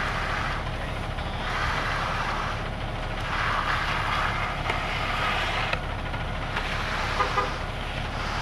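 Concrete truck engine running low and steady, with a scraping hiss that swells and fades about every two seconds as a bull float is pushed and pulled across the wet concrete slab. A short burst of beeping about seven seconds in.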